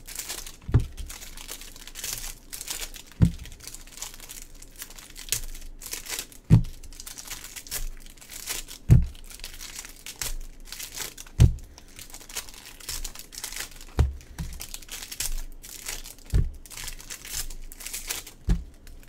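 Foil trading-card packs being torn open and their wrappers crinkled, steady and continuous, with a dull thump about every two and a half seconds.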